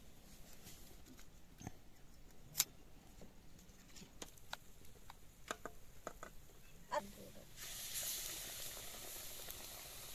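Scattered clicks and taps of hands and utensils at the batter bowl, then, about three quarters of the way through, a besan-battered radish-leaf pakora going into hot oil in a wok and sizzling steadily.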